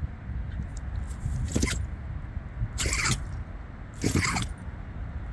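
A pet sneezing three times in quick succession, about a second and a quarter apart, each sneeze a short sharp burst.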